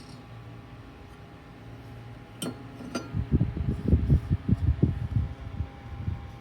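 Small Holmes 6-inch Heritage USB table fan: a faint steady hum, two sharp clicks about two and a half seconds in, then the fan's air buffeting the microphone in irregular low rumbling thumps.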